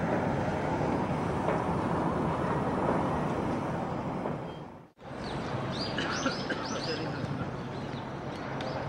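Steady city background noise that cuts off about five seconds in; then birds chirp several times in quick succession over a low steady hum.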